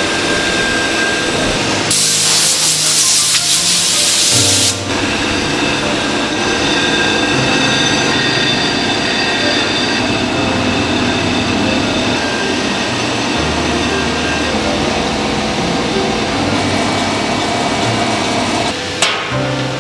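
Sectional warping machine running steadily as it winds yarn onto its drum. A loud hiss about two seconds in lasts nearly three seconds, then cuts off.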